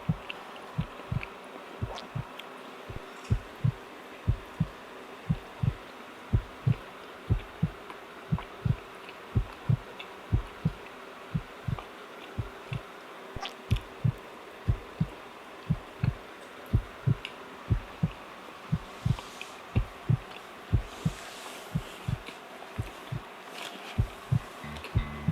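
Close-miked chewing of soft donuts: low muffled thuds at about two a second, with a few brief pauses and small wet mouth clicks.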